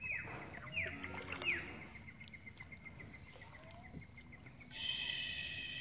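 Birds calling, with a few quick falling chirps in the first two seconds over a fast, even ticking trill. Then a steady buzz on several pitches starts near the end.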